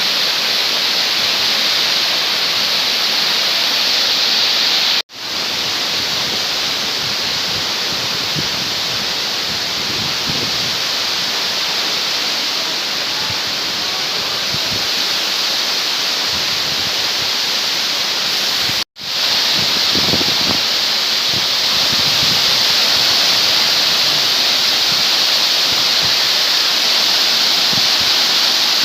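Waterfall rushing: a steady, loud hiss of falling water, cut off for a split second twice.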